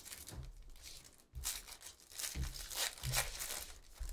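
Foil wrapper of a Panini Phoenix Football hobby pack being torn open and crinkled by hand, in several rough stretches that are loudest in the second half.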